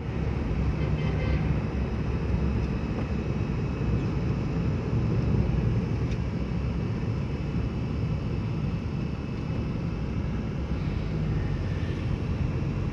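Motor vehicle driving at speed: a steady low engine and road rumble with an even hum.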